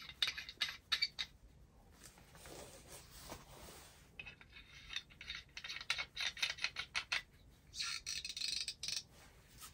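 Brass hose connector being screwed onto the threaded top of an Alb metal water-filter housing. Faint, quick metallic clicks and thread scraping come in several spells, with a rasping spell near the end.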